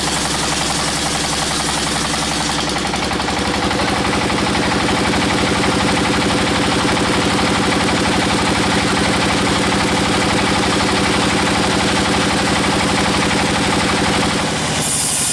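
Engine running steadily with a fast, even firing beat, the kind that drives a small sawmill. The top of the sound changes abruptly about three seconds in and again near the end.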